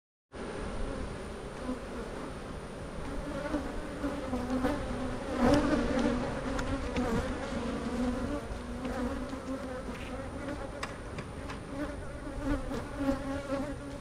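Swarm of honeybees buzzing around an open hive and a bee-covered brood frame: a dense, steady hum whose pitch wavers. A few light clicks and knocks come through, the loudest about five and a half seconds in.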